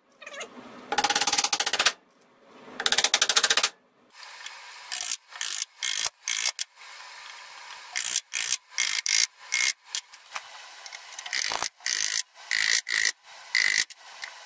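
Nails rattled rapidly in a small plastic box, twice, then a run of short knocks and scrapes as pine boards are handled and fitted, a few with a short squeak near the end.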